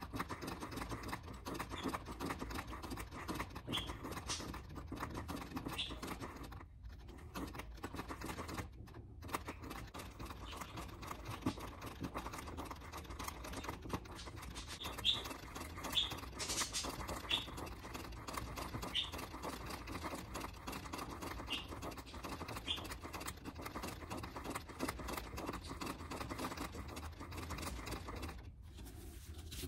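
Treadle sewing machine stitching in quick, steady ticks as the needle punches through water-soluble paper held in an embroidery hoop. It stops briefly twice, about seven and nine seconds in, and halts near the end, with a few short high squeaks around the middle.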